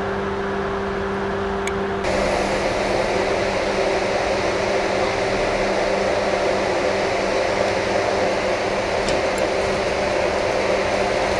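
Steady machine noise: a low hum with an even rushing hiss over it. About two seconds in, one hum tone drops out and the rush becomes louder and fuller, and the remaining hum fades out a few seconds later.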